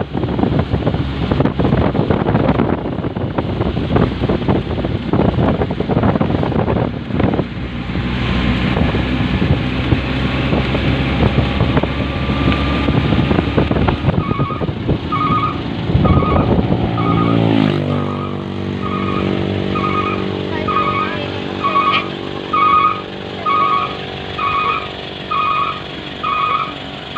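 A vehicle's engine running over rough road and wind noise. About two-thirds of the way through the engine slows, its pitch falling, and then it runs steadily. Over it a short electronic beep repeats, a little more than once a second.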